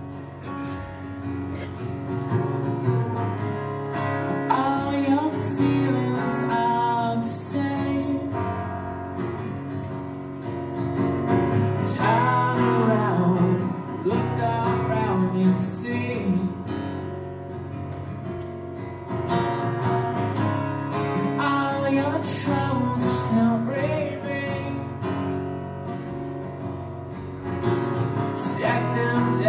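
Live solo performance: a guitar strummed and picked, with a man's voice singing over parts of it.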